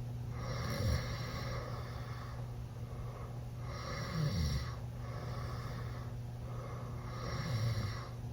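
A teenage boy snoring with his mouth open while sleeping off a night of drinking: three slow snores, about three and a half seconds apart.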